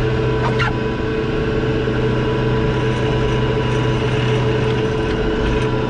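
Boat's anchor capstan winch turning steadily, hauling in the anchor rope, over the even drone of the boat's engine, with one brief click about half a second in.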